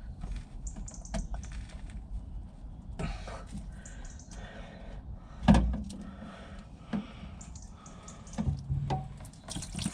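Handling noises as the old fuel filter is pulled out of its housing: scattered clicks and light rubbing, with one loud knock about halfway through.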